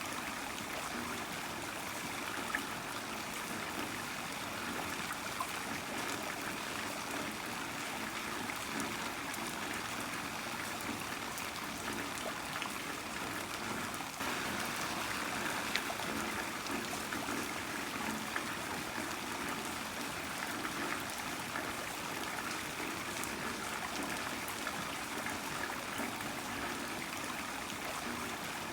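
Heavy rain falling steadily, with running, trickling water and many scattered sharp drop ticks; it gets slightly louder about halfway through.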